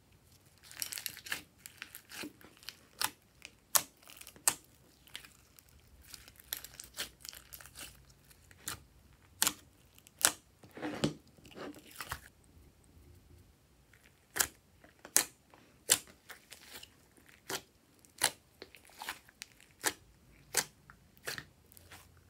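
Glossy glitter slime being pulled, folded and squeezed by hand, giving off a string of sharp wet clicks and pops, with a longer squelch about eleven seconds in.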